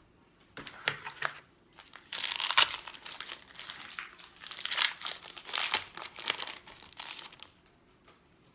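Crinkling of a trading card pack's foil wrapper being handled and opened by hand, in uneven bursts, loudest around a third of the way in and again past the middle.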